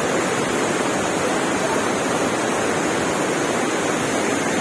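Waterfall roaring close by: a loud, steady rush of falling water.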